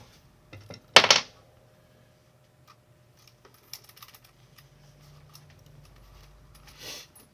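Light clicks and clinks of a soldering iron's tip being swapped out, with one louder metallic clatter about a second in.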